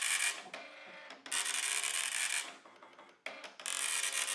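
Dot-matrix printer printing on continuous tractor-feed paper: the print head makes buzzing passes about a second long, each one a line of print, with short pauses between them.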